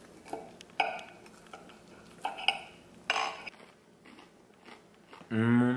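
Knife and fork cutting through crispy breaded chicken on a ceramic plate: a handful of short crunchy scrapes and clicks of steel on china, one with a brief ring. Near the end someone hums a long 'mmm' on tasting it.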